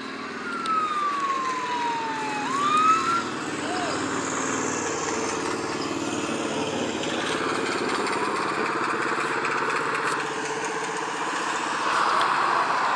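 Police car siren giving a long falling wail, then a quick rising whoop in the first few seconds, over crowd chatter and a steady engine rumble. The traffic noise grows louder near the end as vehicles approach.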